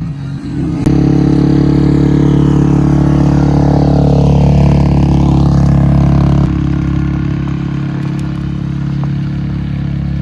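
Yamaha Grizzly ATV's single-cylinder engine running hard at a steady speed. It starts up loud about a second in and eases slightly about two-thirds of the way through.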